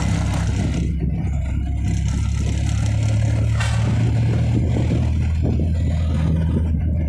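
Tata Magic Express pickup's engine and road noise heard from inside the cab while driving at about 60 km/h, a steady low drone. A single short knock about three and a half seconds in.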